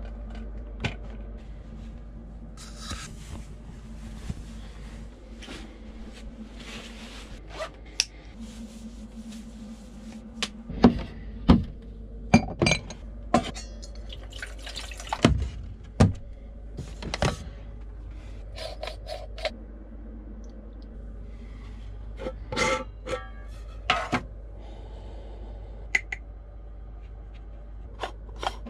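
Metal kitchenware handled at a small stainless-steel sink and counter: a steel pot, lids and pans set down, clinking and scraping, with scattered sharp knocks, the loudest between about ten and eighteen seconds in.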